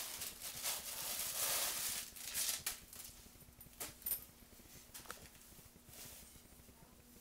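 Crinkling, rustling plastic glitz deco mesh being pulled off its roll and handled, loudest in the first two and a half seconds, with a few sharp clicks in the middle.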